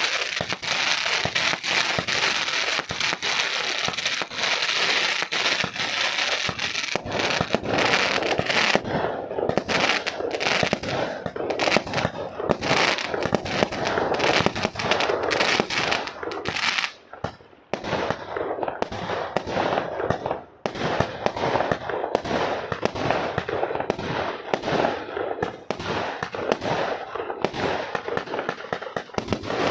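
A 126-shot firework barrage cake firing. Dense crackling fills the first several seconds, then rapid shots burst one after another, with two short lulls in the second half.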